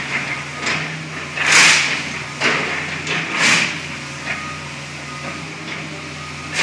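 Excavator engine running steadily while its demolition clamp attachment grabs and shifts a pile of trash, with several short bursts of crunching and scraping debris, the loudest about one and a half seconds in and another about three and a half seconds in.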